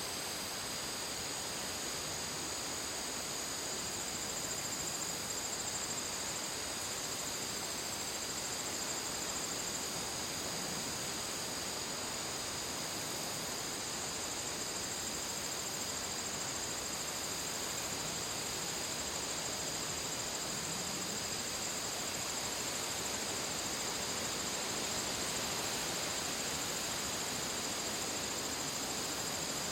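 Crickets chirping in a steady, unbroken chorus of high trills over an even, soft hiss of outdoor ambience.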